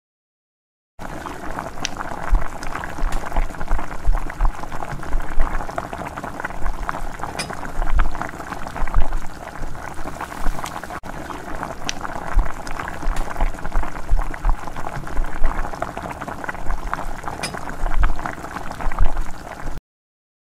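A pot of kadhi pakora, a thick yogurt and gram-flour curry, boiling hard: dense, irregular bubbling with many small pops as the curry froths up. It starts about a second in and cuts off suddenly near the end.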